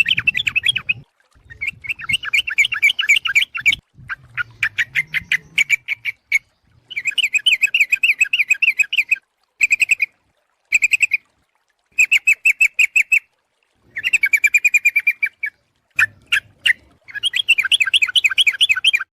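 Yellow-vented bulbul (trucuk) chattering: about nine short phrases of rapid, bubbly notes, each a second or two long, with brief pauses between them. It is a lure call, a female calling the male.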